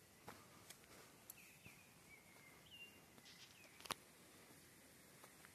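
Very quiet outdoor ambience with faint short bird chirps and a few sharp clicks, the loudest about four seconds in.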